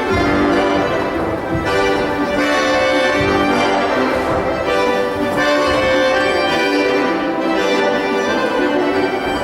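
Instrumental music accompanying a dance barre exercise: held chords and melody notes that change every second or so, without pause.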